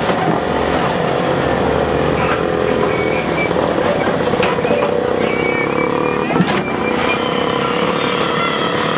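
A small engine running steadily at an even pitch, with a couple of sharp knocks, the loudest about six and a half seconds in.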